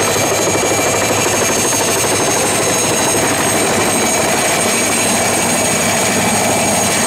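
PZL-Świdnik Mi-2 helicopter hovering low: the steady whine of its twin turboshaft engines over the fast chop of the main rotor blades.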